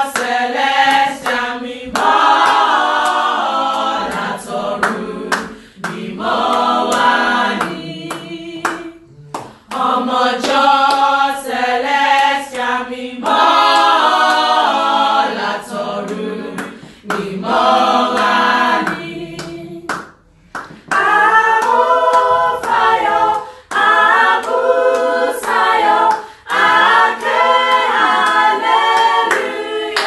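Youth choir singing a hymn together in phrases with short breaks, a sharp regular beat running under the voices.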